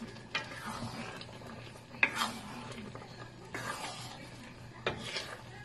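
A utensil stirring and scraping through shrimp, squash and string beans in coconut milk in a nonstick wok, with three sharp clicks of the utensil against the pan. A faint steady hum lies underneath.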